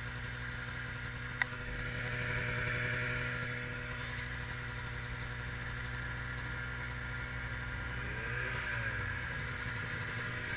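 Arctic Cat 700 snowmobile engine running steadily at cruising speed, heard from the rider's seat, swelling a little louder a couple of seconds in. A single sharp click comes about a second and a half in.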